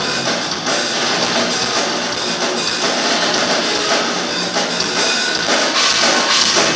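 Rock band playing live: a drum kit pounding out a fast beat over electric guitars and bass, loud and dense.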